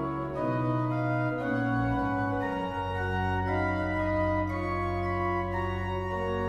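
Pehr Schiörlin's 1785 pipe organ playing held chords on the manual over a sustained pedal bass. The chords change every second or two.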